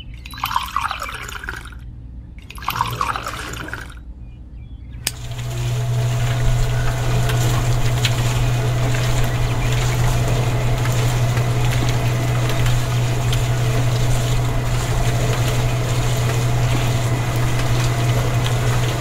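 Water poured from a small bucket into a can of sand, in two short splashes. About five seconds in, the small electric motor of a miniature toy concrete mixer starts and runs with a steady hum as it turns the can.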